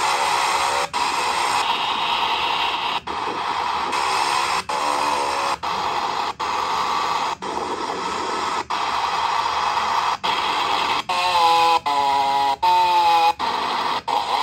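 Loud, steady static-like hiss broken by brief dropouts about once a second, with a few short wavering tones near the end.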